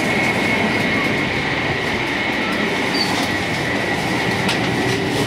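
Steady running noise of the Genbi Shinkansen, a converted E3-series shinkansen, heard from inside a car at speed: an even rushing noise with a thin, steady high whine above it.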